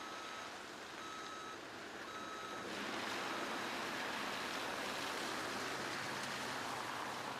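A vehicle's reversing alarm beeping about once a second, three clear beeps and a fainter fourth, over the noise of a running vehicle that grows louder about three seconds in.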